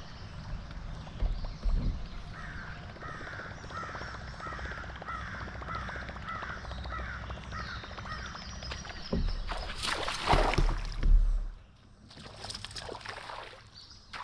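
A bird calling in a quick series of about a dozen short, repeated calls, followed a few seconds later by louder rushing noise.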